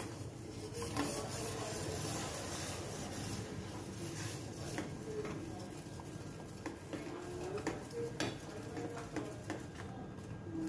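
Steel ladle stirring rice and wheat flour into hot jaggery syrup in a steel pot: a steady wet scraping, with a few clicks of the ladle against the pot.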